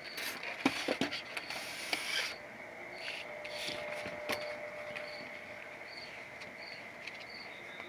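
Styrofoam packaging and a paper booklet being handled: a few scrapes, rustles and clicks over the first two seconds or so, then only small handling noises. Crickets chirp faintly behind, short regular chirps about twice a second.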